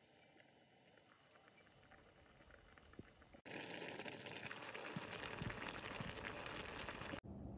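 Braised chicken necks simmering in their sauce, a faint bubbling crackle. About three and a half seconds in it becomes a louder, steady crackle of fine pops as spaghetti cooks in the sauce, stopping abruptly near the end.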